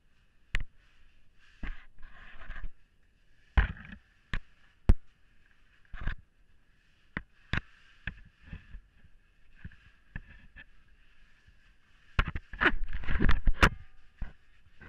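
A caver's helmet and gear knocking and scraping against cave rock while squeezing through a tight passage. Scattered sharp knocks come every second or so, with a longer, louder spell of scraping near the end.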